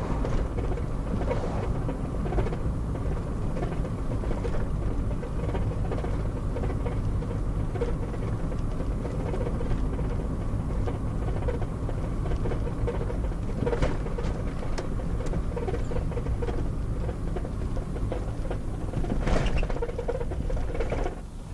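Car engine and road noise heard from inside the cabin while driving steadily, with a couple of brief clicks or knocks later on.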